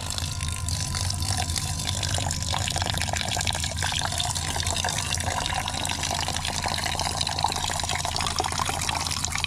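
Water pouring in a steady stream from a large plastic water jug into a metal camping pot of washed rice, filling it to cook the rice.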